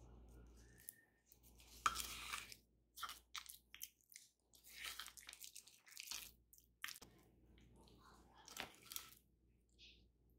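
A spatula mashing and scraping softened butter with herbs around a ceramic bowl: irregular soft squishes and scrapes, the loudest about two seconds in.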